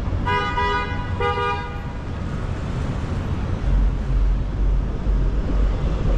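A car horn honks twice in quick succession, each blast about half a second long, over steady street traffic noise. A deeper traffic rumble grows louder past halfway through.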